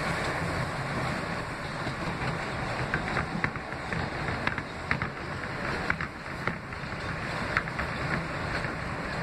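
R160B subway car running on the rails, a steady rumble of wheels and motors. From about three seconds in, short, sharp clicks come through at irregular intervals.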